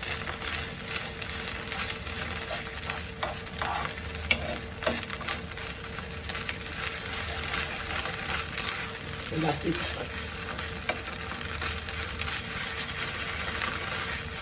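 Ginger and ground spices frying in a little ghee in a non-stick frying pan, sizzling steadily, while a spoon stirs and scrapes the pan in scattered clicks.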